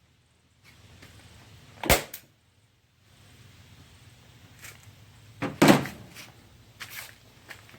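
Staple gun firing a staple once about two seconds in, then a heavier thunk a little past five and a half seconds and a few light knocks near the end: stapling vinyl upholstery down onto a wooden seat base.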